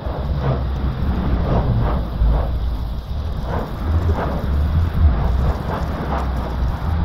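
Wind buffeting the microphone in a loud, uneven rumble, with short rasping swishes about twice a second over it.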